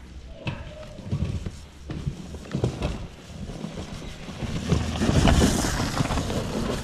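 Downhill mountain bike coming down and passing close by: tyres crunching and sliding on loose dry dirt with knocks and clatter from the bike, building to its loudest with a spray of dirt as it goes past about five seconds in. A spectator takes the rider to be running on the rims.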